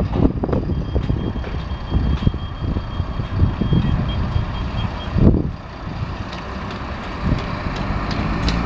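Wind buffeting the microphone with a low rumble, and a faint high-pitched tone from about a second in that breaks into short beeps before stopping about five seconds in.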